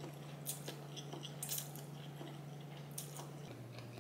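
Quiet eating sounds of spaghetti being chewed, with a few short faint clicks over a steady low hum.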